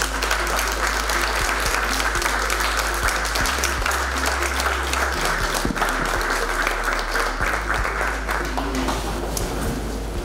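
Audience applauding: dense, sustained clapping that starts to thin out near the end.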